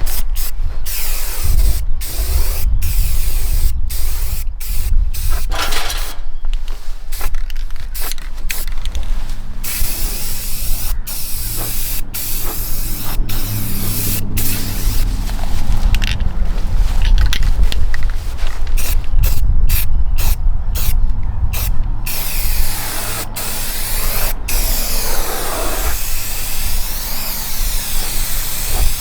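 Arc welding on a steel C-channel bracket: a continuous sizzling crackle of the arc, broken by many brief stops and restarts, then running steadier near the end.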